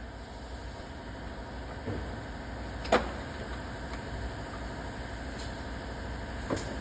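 Hand tools working on a car's battery hold-down: a sharp metallic click about three seconds in and two fainter knocks, over a steady low hum.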